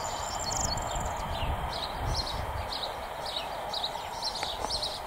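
A small bird chirping in quick, repeated short notes, about three a second in the second half, over steady outdoor background noise with low rumbles.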